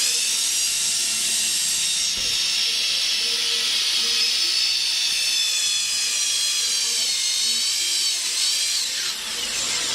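Metal being cut or ground by a power tool on a motorcycle wheel hub: a loud, steady high-pitched whine over a hiss, its pitch wavering slightly and dipping near the end.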